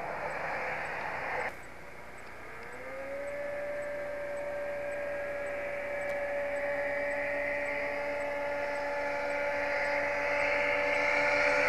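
Two racing snowmobiles' two-stroke engines at full throttle, a steady high whine that winds up about two and a half seconds in and grows louder as the sleds come head-on. A hiss in the first second and a half cuts off abruptly.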